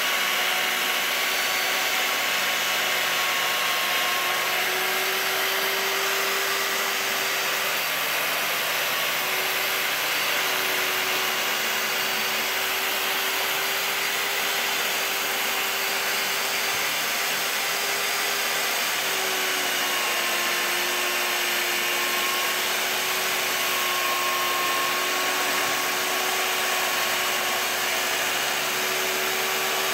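Circular saw running steadily while ripping a bevel along the edge of a thick wooden board, its motor whine wavering slightly in pitch under load.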